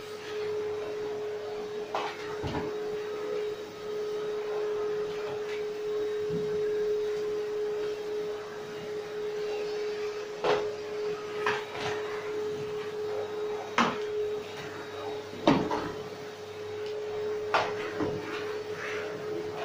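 Vacuum cleaner running with a steady hum, with several sharp knocks and clacks as the wand and nozzle are pushed around the floor.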